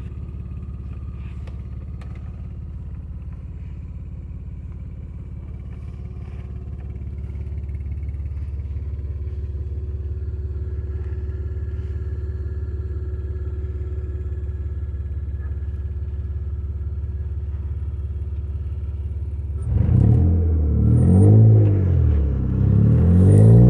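Acura TL V6 engine idling steadily while running on only three cylinders because of bad fuel injectors. Near the end it is revved twice, the pitch rising and falling each time.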